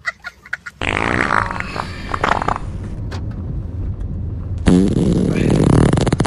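Two long fart sounds. A sputtering one starts about a second in and fades out past the midpoint, then a louder one made of rapid flapping pulses begins near the end.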